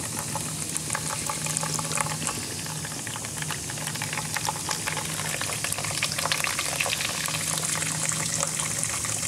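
Vinegar poured in a thin stream from a plastic bottle into a shallow tray of vinegar holding grill grates, splashing steadily into the liquid. Over it runs a fine crackling fizz from the vinegar reacting with baking soda on the rusty grates.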